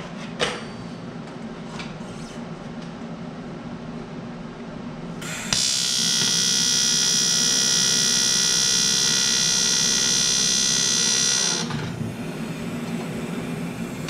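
Eastwood TIG 200 welder running an AC TIG arc: a loud, steady, high buzz that starts abruptly about five and a half seconds in and cuts off about six seconds later.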